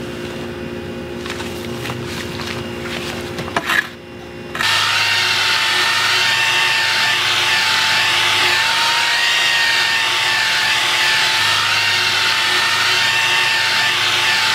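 An electric angle grinder cuts in about four and a half seconds in and runs loud and steady, its motor whining at an even pitch as it scours loose rust off steel leaf-spring leaves ahead of sandblasting. Before that there is a quieter stretch of faint steady hum.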